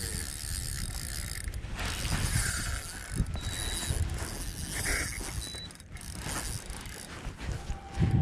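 Spinning fishing reel being cranked, its gears whirring and clicking as line is wound in.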